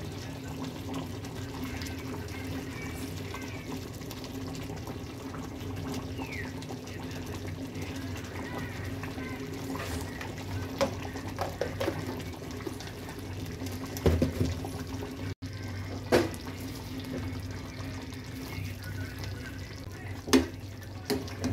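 Spiced mutton biryani liquid simmering and bubbling in an open aluminium pressure cooker on a gas burner, over a steady low hum. A few sharp knocks near the end, as a spoon stirs and strikes the pot.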